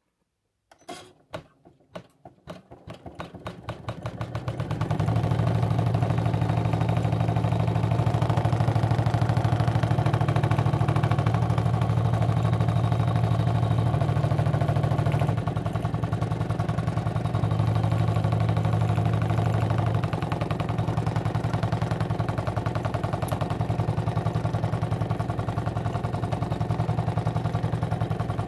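Janome embroidery machine starting up: a few slow, separate needle strokes that speed up over the first few seconds, then steady rapid stitching with a low hum as it sews out a design.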